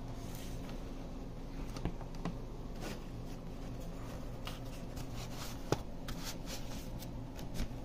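Handling noise from packaging being moved about: scattered rustles and light clicks of the scanner's case and the corrugated plastic sleeves of its box, with one sharper click a little after halfway. A steady low hum runs underneath.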